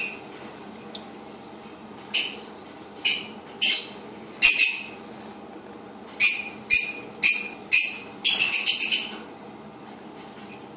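Indian eyed turtles biting and tearing floating leafy greens at the water surface: a string of sharp, crisp bites, about one every half second to a second, with a quick run of several close together near the end.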